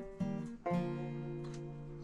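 Background music: an acoustic guitar strumming chords, with one chord struck a little under a second in and left ringing.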